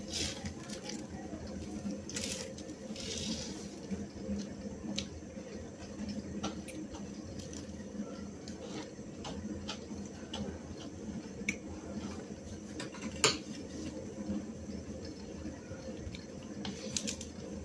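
Stainless steel plates and serving spoons clinking now and then while rice is mixed and eaten by hand, over a steady low hum. The sharpest clink comes about 13 seconds in.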